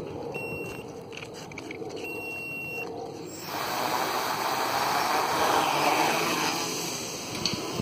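Homemade quadcopter's four brushless motors and propellers throttling up about three seconds in to a loud rushing whir as it lifts off, easing off again near the end.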